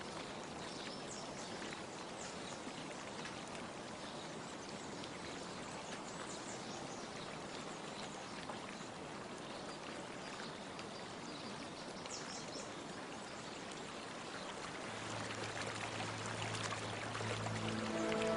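Steady hiss of running water, like a stream or fountain. About fifteen seconds in, a low, held music note with overtones fades in over it.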